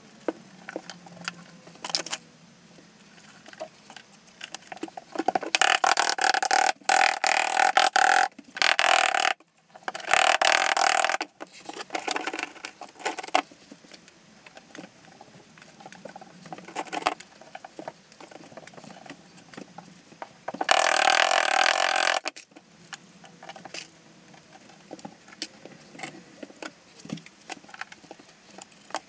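Glass mosaic tile sheets clicking and tapping as they are handled and pressed into thinset. Four loud rasping noises of one to four seconds each break in, the longest about five seconds in and another near twenty-one seconds.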